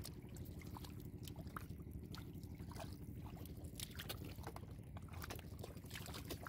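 Bare feet and hands splashing and squelching in shallow muddy water, many small irregular splashes, over a steady low hum.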